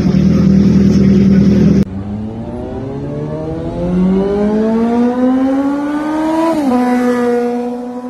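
Suzuki GSR 750's inline-four engine held at high revs through a full aftermarket exhaust with the catalytic converter removed, cut off abruptly about two seconds in. Then an intro sound effect: a synthesized tone rising slowly for several seconds, dropping sharply near the end and settling on a steady tone.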